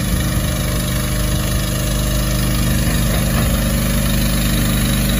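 Diesel engine of a Mitsubishi Fuso water tanker truck running steadily, with a constant hiss of water jetting from its spray nozzles onto the road.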